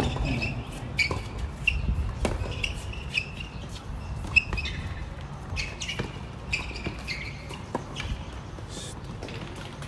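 Tennis rally: sharp pops of racket strikes and ball bounces every one to two seconds, the loudest about four and a half seconds in, with small birds chirping throughout.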